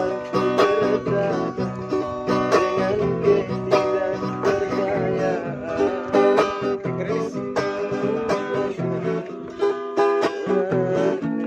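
Instrumental music led by plucked strings: a run of quick picked notes, with no singing.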